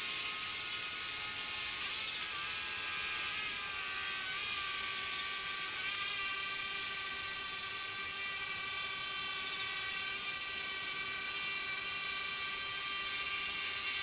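Small quadcopter drone's electric motors and propellers whining steadily, with the pitch wavering briefly a few seconds in as the motors change speed.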